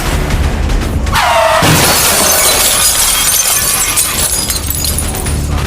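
A shattering crash sound effect, like breaking glass, begins about a second in with a short falling tone and spreads into a long, dense hiss of breaking, over music with a heavy bass.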